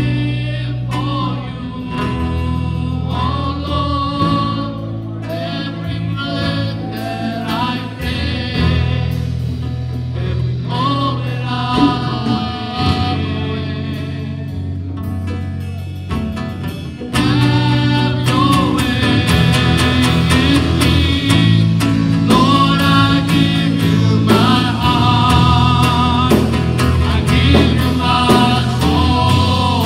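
Live worship music: a singer leads a gospel song over a band, with steady held chords underneath. The band fills out and grows louder about halfway through.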